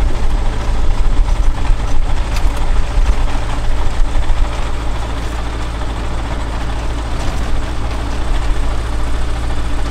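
Ultralight aircraft engine running with a steady low drone, heard from inside the cockpit as the plane rolls along a grass airstrip.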